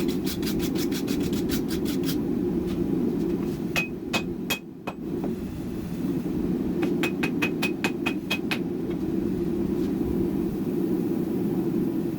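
Quick runs of hammer blows on Damascus billet steel, about six strikes a second with a metallic ring: one run at the start, a few blows around four seconds in, and another run about seven seconds in. A steady low rushing noise runs underneath.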